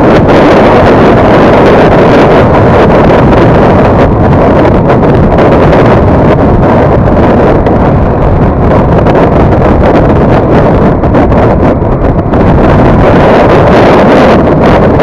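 Loud, steady wind rush on the microphone of a CFMoto 250NK motorcycle cruising at about 65–77 km/h, with no distinct engine note standing out above it. It eases slightly past the middle.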